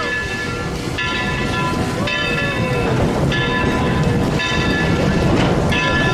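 Train rolling along the track with a steady rumble and rattle, and a bright chord repeating roughly once a second over it.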